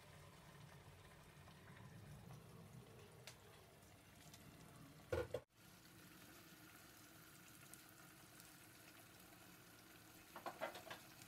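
Faint sizzle of beaten eggs frying in a pan, with a short knock just after five seconds in and a few light clicks near the end.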